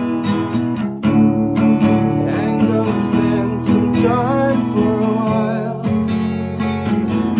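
Acoustic guitar strummed in a steady rhythm, with a woman singing a wavering melody over it through the middle.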